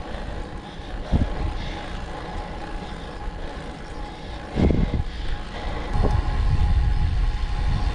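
Wind buffeting a camera microphone on a moving road bike, with tyre and road noise underneath. It swells in gusts about a second in and in the middle, and stays stronger over the last two seconds.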